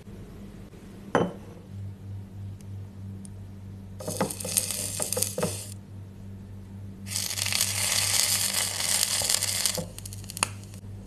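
A tiny metal spoon clicks once against a small ceramic bowl. Later comes a short burst of hissing and clicking, then a longer, steady sizzle as a spoonful of white batter fries in hot oil in a miniature frying pan.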